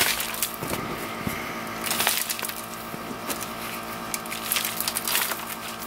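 Potting soil scooped by hand from a bucket and dropped into a styrofoam cup: crumbly rustling in bursts, loudest right at the start, about two seconds in and about five seconds in.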